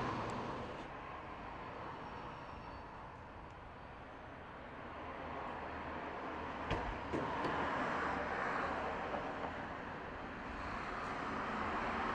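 Background ambience of steady noise that swells and fades twice, with a couple of light knocks about seven seconds in.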